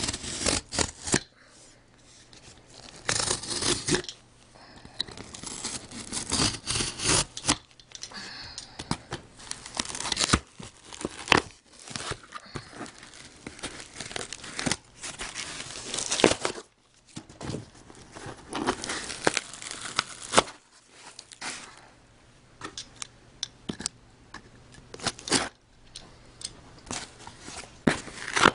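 A cardboard shipping box being torn open by hand: repeated long ripping sounds with crinkling and sharp snaps between them.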